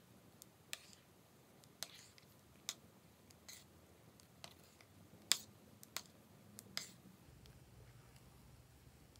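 Wet, sticky clicks and pops of thick slime being stirred and pulled up with a small tool in a glass dish, about eight irregular clicks that stop after about seven seconds.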